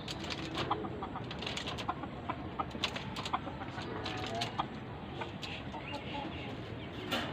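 Chicken clucking in short calls, with many quick sharp clicks and taps scattered throughout.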